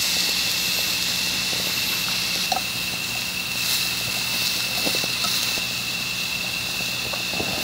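Steady chorus of night insects chirring: a continuous high trill with a hiss above it. A few faint light clicks of chopsticks against the rice pot.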